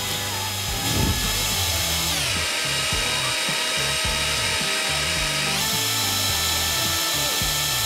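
Electric hand mixer running, its twin beaters whipping cream with condensed milk in a glass bowl: a steady motor whine. The whine drops in pitch about two seconds in and rises again a few seconds later.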